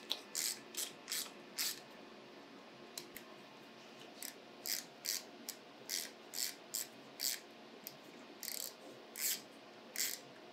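Small hand ratchet clicking in short bursts on its back-swings while tightening screws, with a pause of a couple of seconds early on before the clicking resumes.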